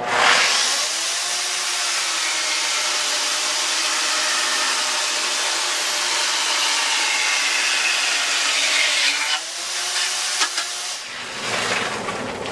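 Electric chainsaw cutting into a cedar log at full speed, its motor note dipping under load, for about nine seconds. It then comes out of the wood and winds down, stopping about a second before the end.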